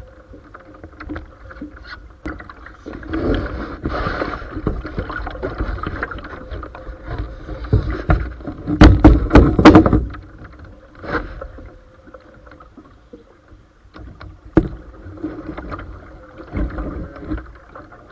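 Paddling a canoe: a wooden paddle splashing and dripping water alongside the hull, with scattered knocks and clicks. The loudest stretch is a cluster of close splashes and knocks about nine seconds in.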